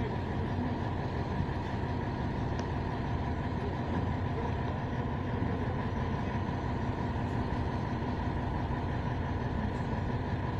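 Engine of a truck-mounted mobile crane running steadily, a constant low drone.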